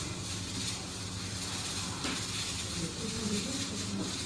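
Steady background hiss with a low hum and no distinct sound event; faint voices come in near the end.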